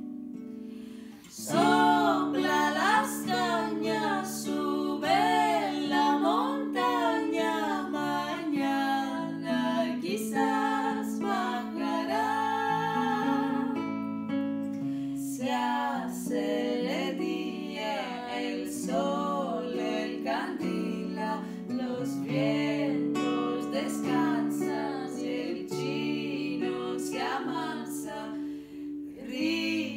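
Two women singing a song together, accompanied by a nylon-string Moov Travel Guitar Classic being plucked and strummed; after a short break about a second in, the voices come back in.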